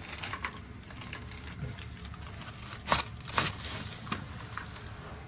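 Two sharp cracks, about half a second apart, around three seconds in: the patient's spinal joints popping under a chiropractic thrust, over soft rustling as the patient settles on the table.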